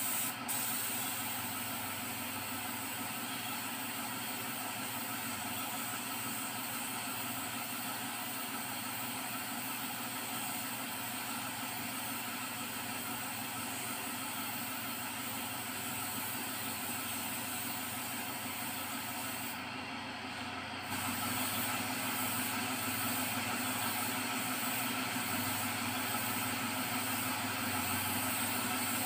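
Gravity-feed paint spray gun laying the colour coat onto a car bumper: a steady hiss of compressed air. About two-thirds of the way through it stops for about a second, then starts again slightly louder.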